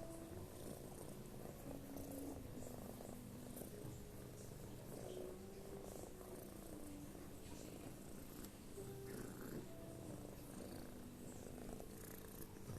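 A sleeping cat snoring quietly and steadily.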